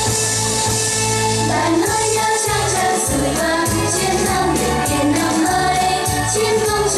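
Children's vocal group singing a Vietnamese song over backing music. A steady drum beat with bass comes in about two seconds in.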